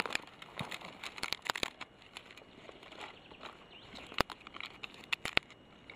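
Dry twigs and forest litter snapping and crackling in scattered sharp cracks as firewood is gathered, with a few louder snaps about four and five seconds in.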